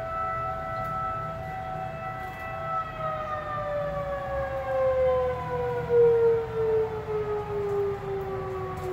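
Outdoor civil-defense warning sirens, a Federal Signal 2001 among them, sounding together as a steady multi-tone chord that begins to wind down about three seconds in, the pitch falling smoothly from then on. Under them is a low rumble of background noise.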